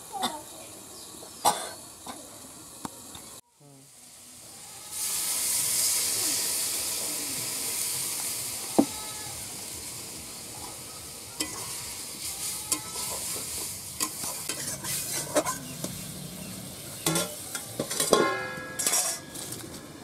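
Food frying in hot oil in a wok over a wood fire. A loud sizzle starts suddenly about five seconds in and slowly dies down, with scattered sharp clinks of a metal spatula against the pan.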